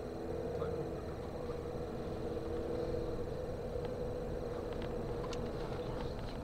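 A car's engine droning steadily while driving, with low road rumble from the tyres, heard inside the cabin.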